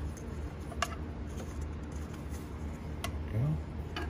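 Light clicks and taps of hands working a rubber drive belt onto a mower's pulleys and brackets, a few separate sharp clicks over a steady low hum.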